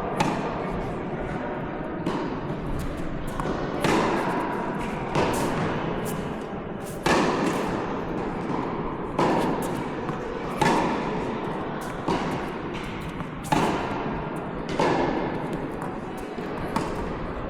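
Tennis rally: tennis balls struck by rackets and bouncing on the court, a sharp impact about every second and a half.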